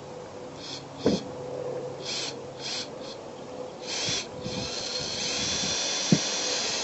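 Power drill driving screws through a thin aluminium roof patch: several short bursts, then a longer steady run over the last two seconds, with a few sharp knocks in between.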